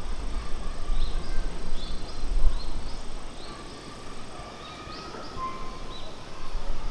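Small birds chirping, many short high notes scattered through, over a low rumble that is loudest in the first few seconds and again near the end.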